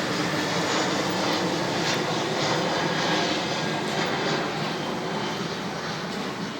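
Aircraft passing overhead: a steady rushing engine noise that swells to its loudest about three seconds in, then slowly eases off.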